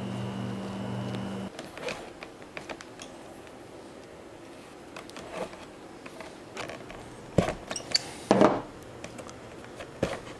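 Thread being pulled through the stitching holes of a leather holster during hand saddle-stitching: soft rustles and small clicks of needles and leather, with a few louder, short rasping pulls in the second half. A steady hum cuts off abruptly about a second and a half in.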